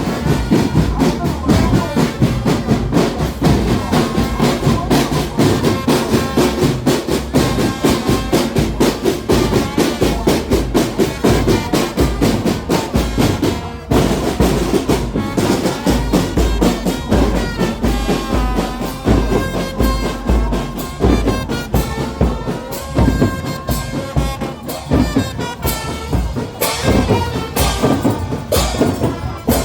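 Brass band music with drums playing a steady rhythm, briefly dropping about halfway through.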